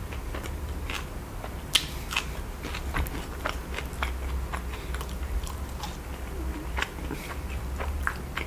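Close-miked chewing and biting of sauce-covered crinkle-cut fries: many short, irregular mouth clicks and smacks over a low steady hum.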